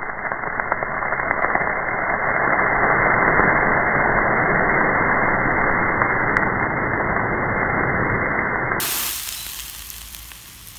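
A fire extinguisher discharging onto a burning plastic toy car, putting out the flames: a loud, steady hiss that builds over the first couple of seconds and stops about nine seconds in.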